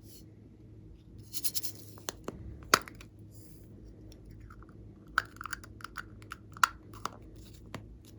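Close handling of plastic piping bags and slime: a short rustling crinkle, a few sharp clicks, the loudest about three seconds in, then a run of light clicks and taps in the second half.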